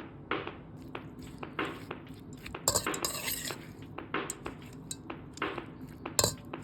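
Kitchen utensils clinking and knocking against dishes in irregular single strikes, with a brief scraping rustle about three seconds in.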